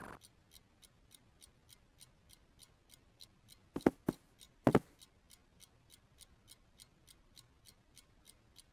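Steady clock ticking, about three ticks a second, with three soft thuds about halfway through.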